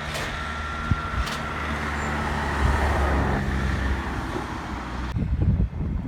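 Road traffic: a motor vehicle passing, a rumble with rushing noise that swells near the middle and cuts off suddenly about five seconds in.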